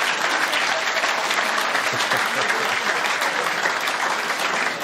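A comedy club audience applauding steadily: dense, many-handed clapping after a stand-up comedian's punchline.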